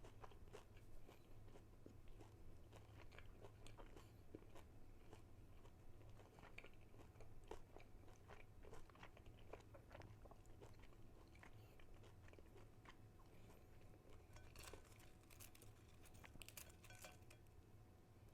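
Faint chewing of crispy fried chicken nuggets: irregular crunches and mouth clicks, with a denser run of crisp crunches near the end.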